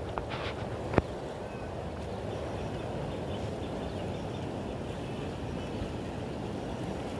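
Steady, even outdoor noise of wind on the microphone and flowing river water, with one sharp click about a second in.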